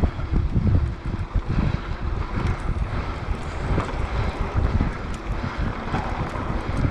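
Wind buffeting the microphone of a camera riding along on a mountain bike on dirt singletrack, over the uneven, jolting rumble of the tyres and bike on the rough trail, with a few faint ticks and rattles.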